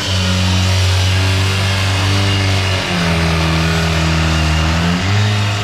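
Engine of construction equipment running steadily. About three seconds in, its pitch drops lower for about two seconds, then comes back up.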